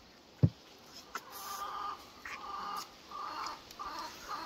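A single thump about half a second in, then a bird calling in a run of short repeated calls, about five in a little over three seconds.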